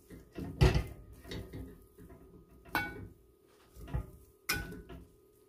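A large metal spoon scraping and knocking against the side of an aluminium Dutch pot as it turns and fluffs cooked rice. There are several separate knocks, some with a short metallic ring, and the loudest comes about half a second in.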